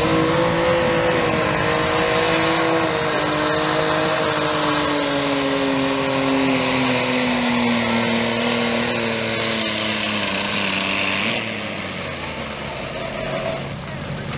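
Heavily modified riding lawn mower engine at full throttle pulling a sled, its pitch slowly falling as the load builds. About eleven seconds in, the loud note drops away, leaving a quieter engine running.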